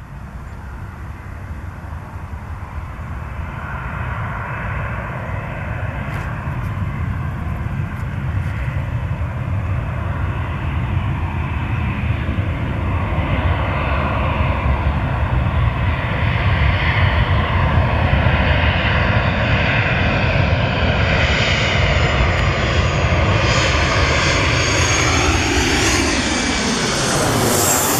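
Jet engines of a Boeing airliner on landing approach, growing steadily louder with a whining tone as it nears; near the end the whine drops in pitch as the aircraft passes close by.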